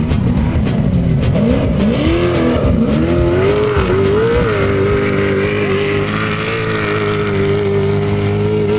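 Off-road race vehicle's engine accelerating hard. Its pitch climbs and drops back several times through gear changes in the first few seconds, then holds at a steady high pitch.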